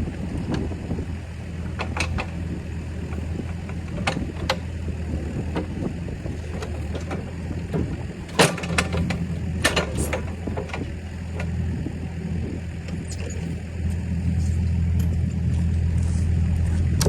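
Engine of a working machine running steadily, with several sharp knocks and clanks; the engine gets louder near the end.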